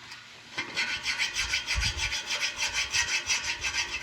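Rapid, even rasping on metal, about ten strokes a second, starting about half a second in: hand-tool prep work on the pump pipe before threadlets are welded on.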